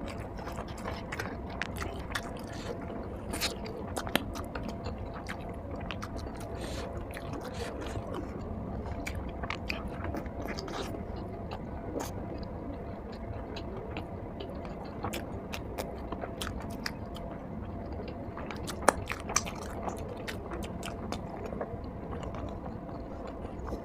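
A person chewing and biting food close to the microphone, with many small sharp wet clicks and occasional louder snaps, over a faint steady hum.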